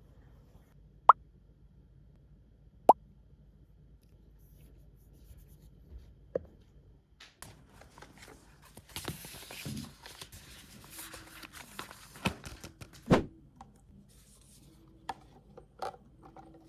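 Two loud, sharp plops rising in pitch, about two seconds apart, then rustling with clicks and knocks of objects being handled. The heaviest knock comes a little after thirteen seconds.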